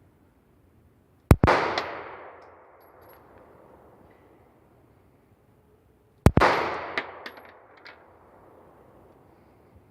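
Two gunshots about five seconds apart, each followed by a long fading echo and a few faint clicks.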